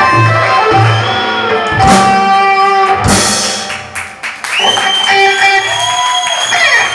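Live rock band of electric guitars, bass and drums playing: loud chords with a cymbal crash about three seconds in, then held, ringing guitar notes that bend downward near the end as the song winds down.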